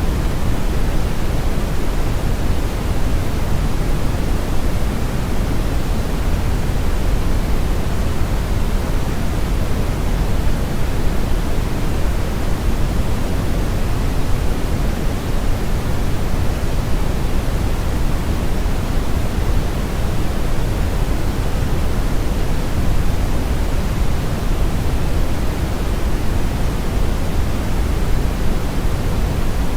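Steady synthetic brown noise blended with white noise: a deep, even rush strongest in the low end with a fainter hiss above, unchanging throughout.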